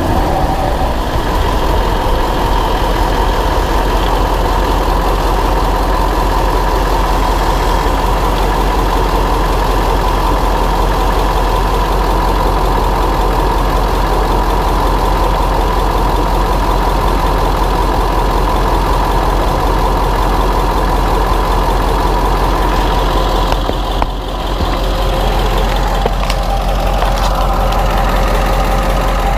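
2000 Ford F-250's 7.3 L Power Stroke V8 turbo-diesel running steadily as the truck rides, heard from a camera mounted on the leaf spring, so engine and road noise come up from under the truck. The sound dips briefly near the end.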